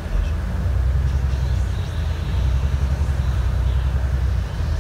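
Alexander Dennis Enviro 400 MMC double-decker bus running on the move, its engine and drivetrain a deep rumble. The rumble swells just after the start, eases briefly about two seconds in, then swells again.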